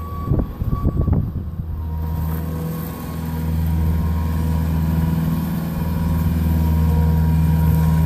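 Bobcat skid steer's diesel engine running steadily as the machine drives with a load of hay bales. A few knocks come in the first second or so, and the engine note strengthens about three seconds in and then holds.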